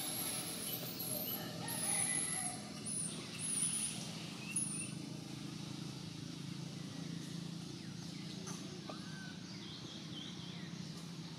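Forest ambience: a run of short, high-pitched chirps and squeals in the first few seconds, then a steady low hum with a few faint chirps near the end.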